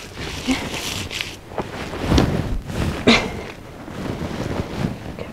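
Wind buffeting the microphone in low rumbling gusts, mixed with short scraping and patting sounds of hands spreading wet mud over a brick oven.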